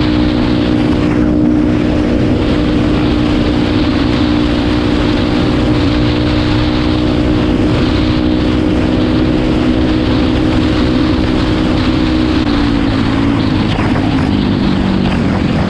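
Kawasaki KFX450R quad's single-cylinder four-stroke engine running at a steady high speed while riding, with wind noise on the microphone. Near the end the engine note drops as it slows.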